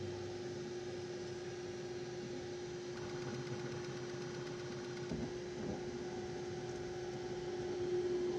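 A Bambu Lab P1S 3D printer running with a steady machine hum and a constant mid-pitched tone. A faint knock or two comes about five seconds in.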